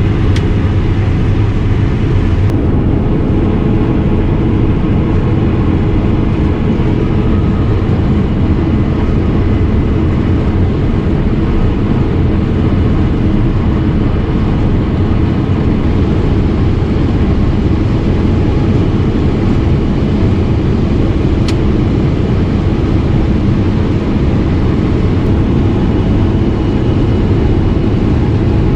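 Case IH 8230 combine running steadily while harvesting soybeans, heard from inside the cab: a constant low drone of engine and threshing machinery.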